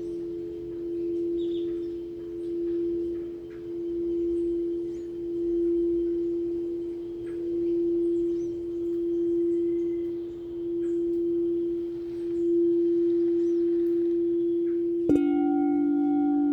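A singing bowl ringing with a steady tone that swells and fades in slow waves about every second and a half. Near the end another bowl is struck once, sounding a lower note with bright overtones that keeps ringing.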